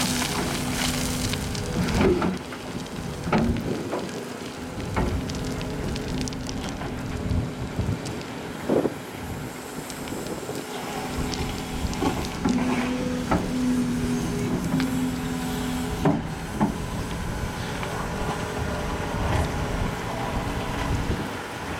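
Volvo EC380E L tracked excavator working: its diesel engine and hydraulics give a steady hum that strengthens in stretches as the riddle bucket sifts and digs through sand, with scattered clanks and knocks from the bucket and linkage.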